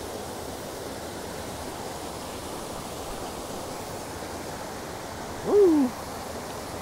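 Small mountain stream rushing steadily over rocks and a low cascade. About five and a half seconds in, a short, loud voice sound slides downward in pitch, like a man's brief 'ooh' as the trout is netted.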